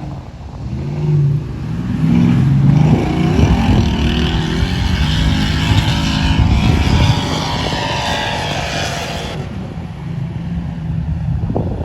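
A car engine revving up, rising in pitch, then running hard at high revs under a loud rushing noise. The rushing cuts off suddenly about nine seconds in, leaving the engine running lower.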